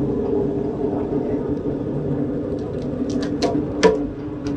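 Sawmill saw running steadily through a log, a continuous hum with a few sharp ticks about three and a half seconds in.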